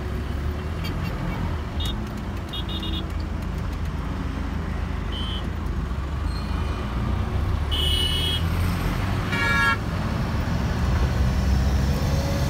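Steady engine and road rumble heard from inside a moving vehicle's cab, with vehicle horns hooting in several short toots, the loudest and longest about eight seconds in.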